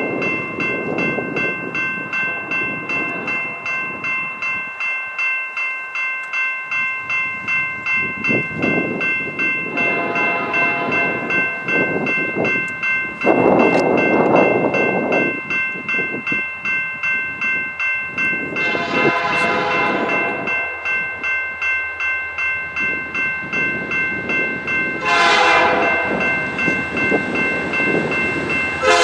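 Level-crossing warning bell ringing steadily as the signal activates, while an approaching freight locomotive's horn sounds from a distance: a long blast about a third of the way in, another past halfway, a short one later, and a fresh blast at the very end. A loud rush of noise without a tone comes near the middle.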